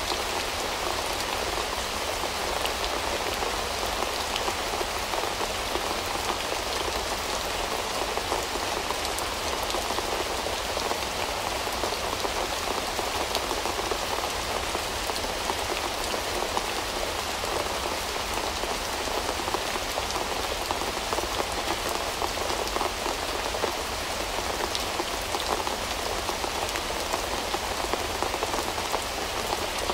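Steady rain falling: a constant hiss dotted with many small drop ticks, even throughout.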